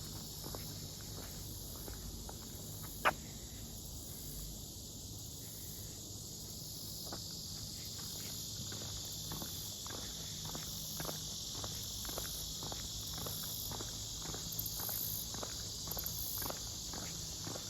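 Footsteps at a steady walking pace, about two steps a second, over a constant high-pitched insect chorus. One sharp click about three seconds in.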